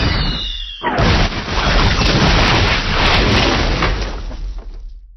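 A descending whistle, then a loud boom about a second in, followed by a dense explosion rumble that fades away over the next few seconds.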